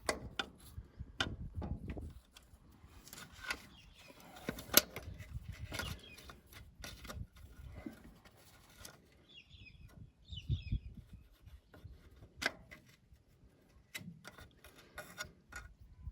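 Scattered clicks, taps and scrapes of hand tools on metal, working a small pin and linkage free from a Ferguson tractor's starter switch. The sharpest clicks come about five seconds in and again near twelve seconds.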